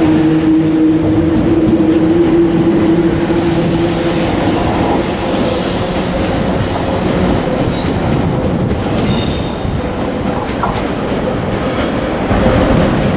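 Suburban electric multiple unit (Z 6400 type) moving along the platform: a steady motor whine in the first few seconds over continuous wheel-and-rail rumble. A few sharp wheel clicks come later.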